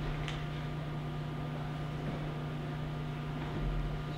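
Steady low electrical hum with hiss, the background noise of the sound system, and one faint short rustle about a third of a second in.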